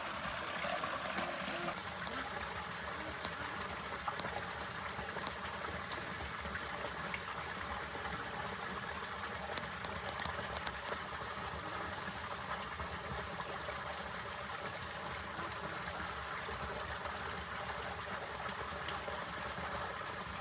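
Running water flowing steadily, a continuous even rush with no pauses.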